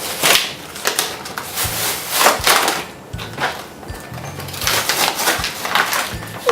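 Toy packaging being torn open by hand, crackling and crinkling in irregular bursts.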